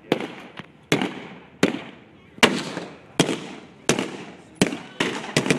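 Gunshots in a staged WW2 battle, about one sharp report every three-quarters of a second, each trailing off in an echo, with a quick pair of shots near the end.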